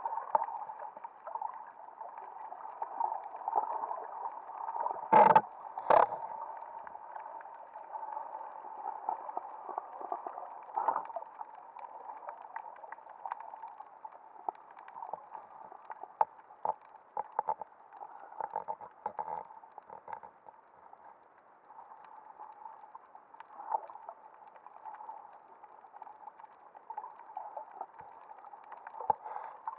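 Muffled underwater sound heard through an action camera's waterproof housing: a steady, dull water hiss and gurgle with scattered small clicks, and two loud knocks about five and six seconds in.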